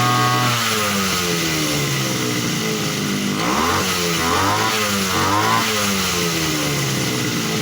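Small petrol engine of a grass-cutting machine running warm. It drops from a high steady speed to a lower one about half a second in, is revved up and down a few times in the middle, then settles into a steady run without stalling, the sign that the warm-start stalling fault has been cured.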